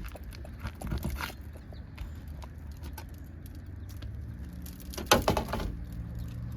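Prying out the last nail holding an asphalt roof shingle: scattered clicks and scrapes of a metal tool against the nail and shingle, with a quick cluster of sharp clicks about five seconds in, the loudest moment.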